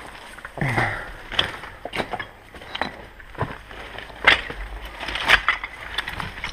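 Irregular knocks, cracks and crunches of wood and debris, a few of them sharper and louder about four and five seconds in.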